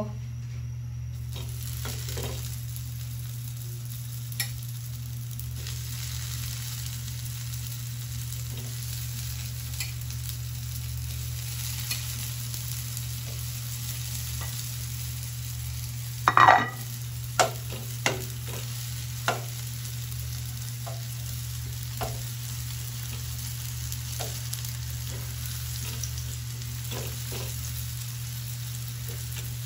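Thin spring rolls frying in hot oil in a pan: a steady sizzle that starts about a second in, with scattered crackles and pops. One louder knock comes about halfway through.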